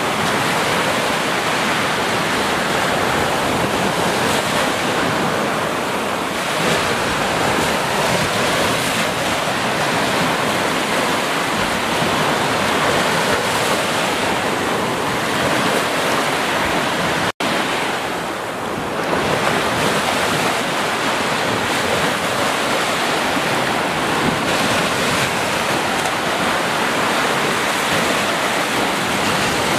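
Ocean surf: small waves breaking and washing up the sand as foam, a continuous rush that swells and eases. The sound cuts out for an instant a little past the middle.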